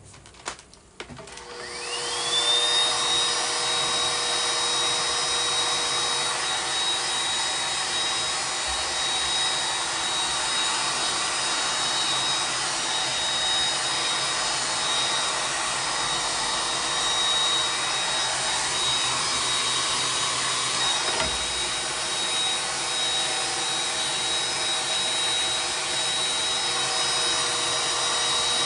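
Amway hair dryer switched on with a couple of clicks, its motor spinning up over about two seconds to a steady high whine over a loud rush of air. It then runs steadily.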